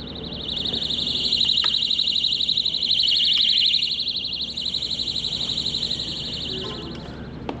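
Electronic alarm buzzer sounding a continuous high-pitched, rapidly pulsing tone, heard through insulation-packed buckets as a test of how well the insulation deadens sound. It grows louder about half a second in, drops noticeably about four and a half seconds in, and is weaker again near the end.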